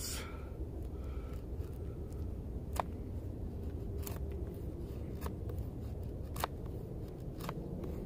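Hollow-ground knife blade carving a green stick: a short, sharp snick as each cut bites into the wood, about one a second, over a steady low rumble.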